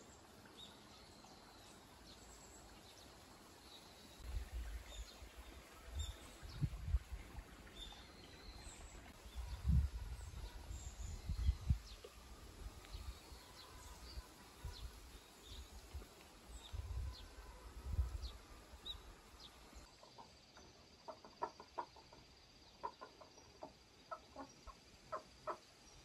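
Small birds chirping in short, scattered high notes over low gusts of wind buffeting the microphone. After a cut about twenty seconds in, chickens cluck in short repeated notes.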